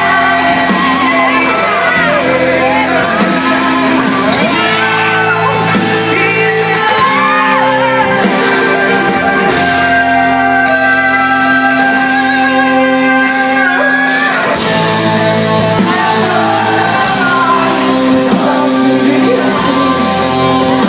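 Live rock band playing loud, amplified electric guitar music, with voices singing and shouting over it, echoing in a large hall.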